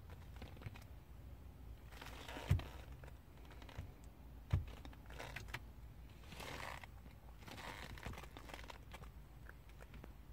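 Faint rustling and handling noise in a car cabin, with two dull thumps about two seconds apart over a low steady rumble.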